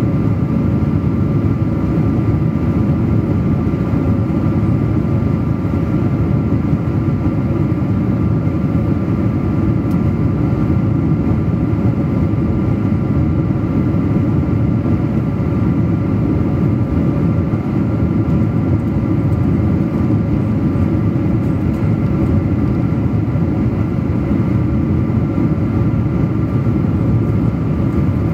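Cabin noise of a Boeing 777-200 in flight, heard at a window seat over the wing: a loud, steady rush of airflow and engine noise from its Pratt & Whitney PW4000 engines, with a few faint steady tones above it.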